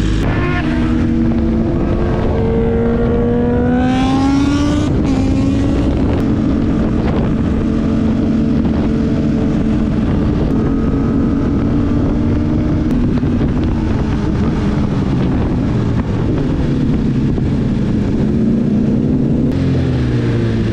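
Sport motorcycle engine under way: its pitch climbs for the first few seconds, drops sharply about five seconds in as it shifts up, then holds a steady drone that sags and rises again near the end.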